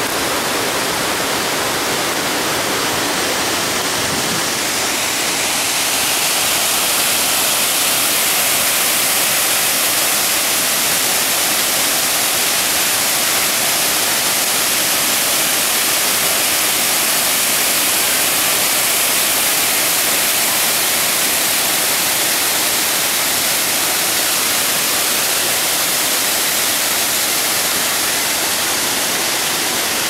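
Water of the Tad Lo waterfall and its river rushing over rock: a steady, even rush that gets louder and hissier about six seconds in.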